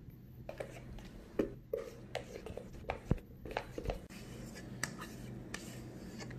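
Irregular scrapes and knocks from a steel mixing bowl and utensil as thick sponge-cake batter is scraped out into a paper-lined baking tray; the loudest knocks come about a second and a half and three seconds in.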